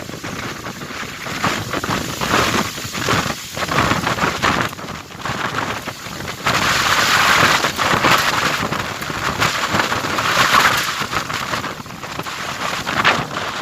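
Strong wind blowing in gusts: a loud rushing hiss that swells and eases, at its strongest through the second half.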